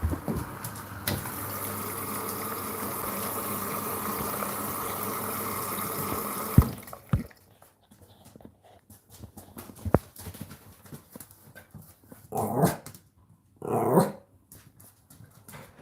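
Hotpoint NSWR843C washing machine running with a steady rushing hiss and low hum, which cuts off with a clunk about six and a half seconds in. Light clicks follow, then two short, louder sounds near the end.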